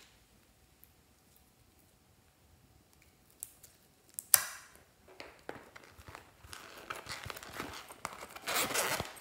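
Hands pressing into and squeezing slime mixed with red foil confetti, glitter and sequins. After about three seconds of near quiet comes one sharp crackle, then crinkling and crackling that grows busier and louder toward the end.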